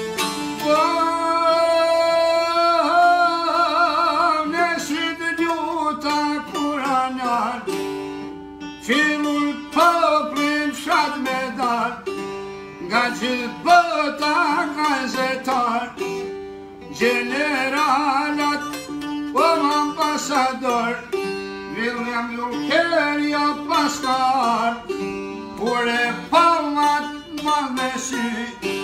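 Albanian folk song on long-necked lutes: a long sung note with a wavering vibrato near the start, then the plucked lutes play a fast, ornamented instrumental passage.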